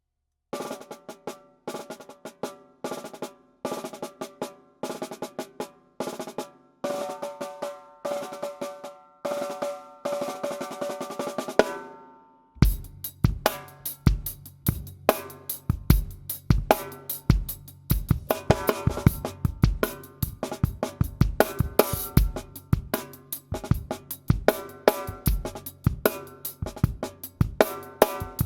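A 7 x 14 inch wenge stave snare drum played on its own in short bursts of strokes and rolls, ringing with a clear pitch between the phrases. About twelve seconds in, it joins a full drum-kit groove with a bass drum.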